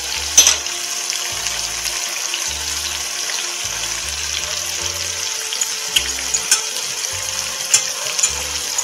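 Veal tafelspitz searing fat side down in a frying pan: a steady sizzle with sharp crackles of spitting fat, the loudest about half a second in and several more near the end. Soft background music with a slow bass line plays underneath.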